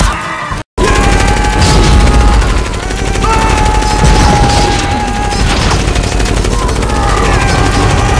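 Loud film battle soundtrack: dense gunfire and blasts, with long held roars from Groot, the tree creature. The sound breaks off briefly under a second in, then runs on without letup.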